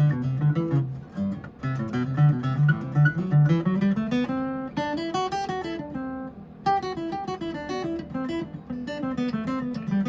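Dreadnought steel-string acoustic guitar, a kit-built copy of a 1937 Martin D-28, played with single picked notes over a repeating bass note. Midway, a run of notes climbs and then comes back down.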